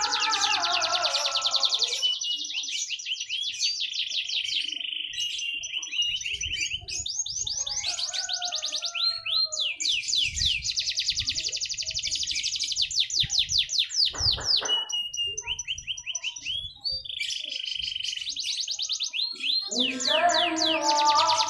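Domestic canary in full song: long phrases of very fast, high trills and rolls follow one another with short breaks. A lower, gliding, pitched sound overlaps the song at the start and again near the end.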